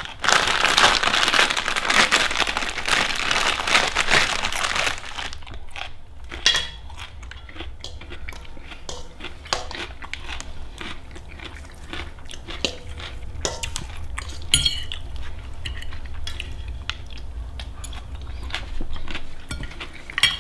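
Plastic packaging crinkling and rustling for about five seconds, then scattered light clinks and scrapes of cutlery on dishes.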